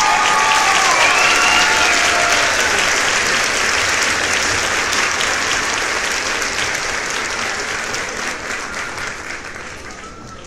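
Crowd applause with a few cheering voices in the first couple of seconds, slowly fading away over about ten seconds.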